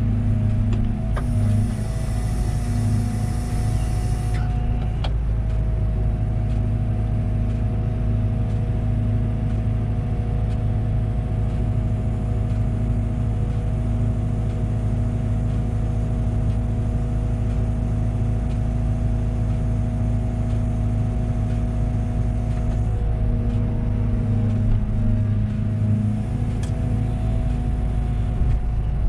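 Engine of a Liebherr 914 Compact wheeled excavator running steadily, its pitch dipping slightly now and then. A brief high hiss comes in about a second in and lasts a few seconds.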